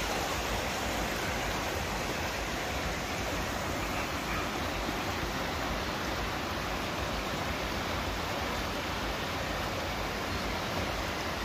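Fast mountain river running over a rocky, stony bed: a steady, even rush of water.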